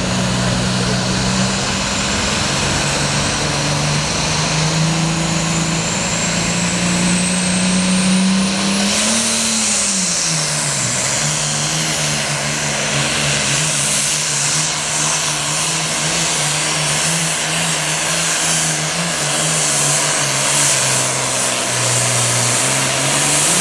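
Super Farm class pulling tractor's turbocharged diesel engine running at full throttle under load while pulling the sled. A faint high whistle rises over the first nine seconds. About ten seconds in the engine note dips as it bogs under the load, then holds steady until it cuts off abruptly at the end.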